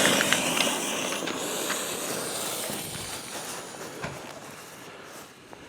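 Lit fuse of a 200-gram firework cake hissing: the hiss starts abruptly, then fades slowly over about five seconds, with a few faint crackles near the start.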